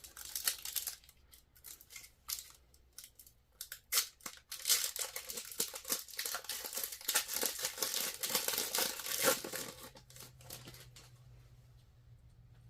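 A trading-card pack wrapper being torn open and crinkled by hand: a few scattered crackles at first, then several seconds of continuous tearing and crinkling that dies away near the end.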